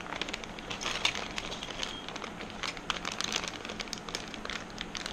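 Clear plastic zip-top parts bags crinkling and rustling as hands handle and open them, a dense run of short irregular crackles.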